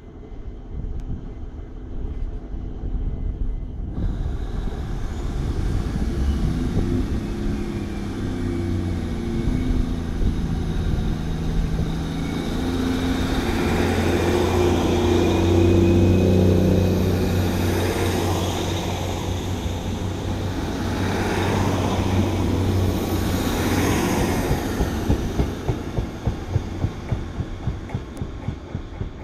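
British Rail Class 150 diesel multiple unit pulling away from the platform on its underfloor Cummins diesel engines. The engine note builds as the train gets under way and passes, is loudest about halfway through, then fades as the train draws off down the line.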